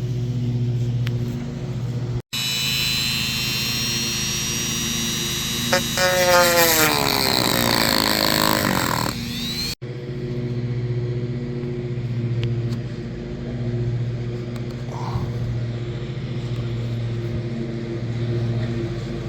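A Dremel rotary tool runs at a high steady whine while cutting into plastic trim, then its pitch falls as it spins down, over a steady low hum. The whine appears and stops abruptly at edit cuts.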